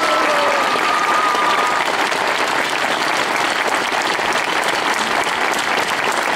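Crowd applauding steadily, with one long held shout over the first couple of seconds.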